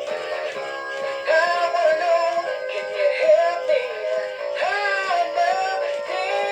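Gemmy Big Mouth Billy Bass singing fish playing its song: a male singing voice over backing music through its small built-in speaker, thin with almost no bass.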